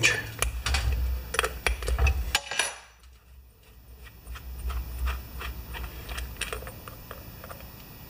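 Scattered light metal clicks and clinks as a small wrench turns the float bowl nut on a Briggs & Stratton mower carburetor and the bowl is worked loose by hand over a metal drain tray. The sound drops off briefly about three seconds in before the clicking picks up again.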